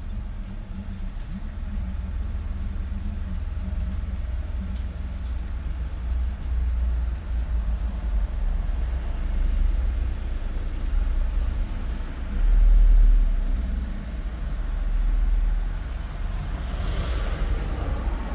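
Street traffic noise: a steady deep rumble of passing motor vehicles. The rumble grows louder twice about two-thirds of the way through, and near the end one vehicle passes close with a rising and falling hiss of tyres.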